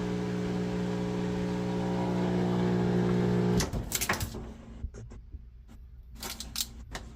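Whirlpool front-load washer's drain pump running with a loud, steady hum. It is the loud draining sound of a clogged drain filter. The hum cuts off about three and a half seconds in, followed by scattered clicks and knocks.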